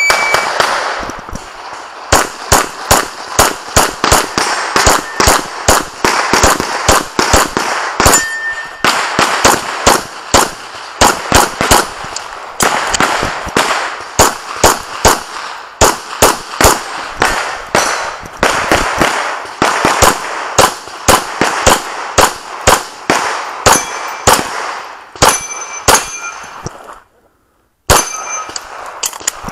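Rapid handgun fire at close range: dozens of shots in quick pairs and strings, with a few short ringing tones from hit steel targets, and a break of about a second near the end.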